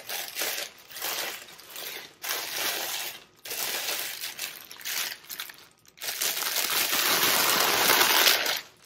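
Plastic wrapping and bubble wrap crinkling in short bursts as a small table lamp is pulled out of it, turning into a loud, continuous crinkle for the last two or three seconds.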